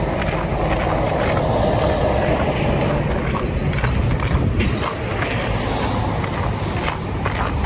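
Steady low outdoor rumble, like street noise heard while walking, with a few faint clicks and knocks.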